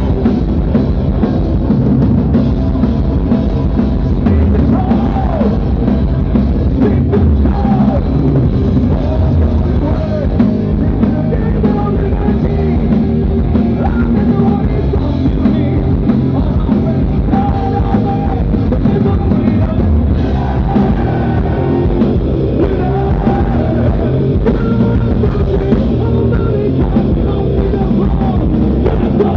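Rock band playing loud live: electric guitars, bass and drum kit, with a vocalist singing into a microphone over them, heard from the front of the crowd.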